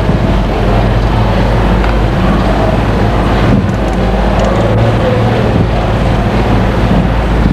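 Car engine running steadily at crawling speed, heard from inside the car as a constant low drone.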